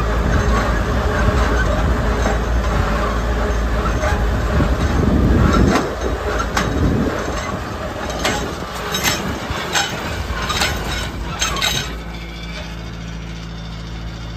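Tractor and seed drill running, a loud, steady mechanical rumble that drops off sharply about six seconds in. A string of metallic clinks and knocks follows for several seconds, and near the end the engine settles into a quieter, steady idle.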